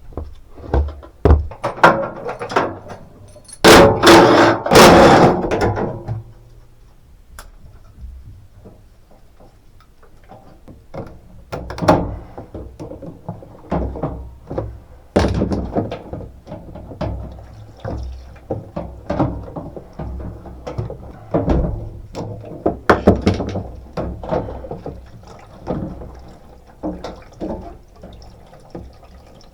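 Irregular knocks, thuds and clatter of parts being handled on a Bosch washing machine during a drum bearing repair, with a louder clattering stretch about four seconds in.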